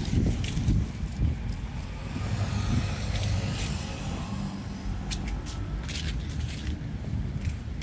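Street traffic: a vehicle engine running with a steady low hum, with scattered light clicks over it.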